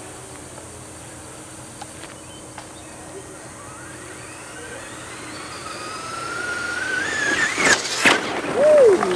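Traxxas RC truck's motor whine, climbing steadily in pitch as the truck speeds closer. It tears past on the dirt about eight seconds in, the loudest moment, and the pitch then drops quickly as it goes by.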